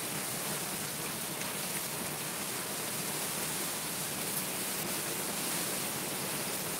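Heavy cyclone rain falling steadily on a paved yard, a constant even hiss with a few faint drop ticks.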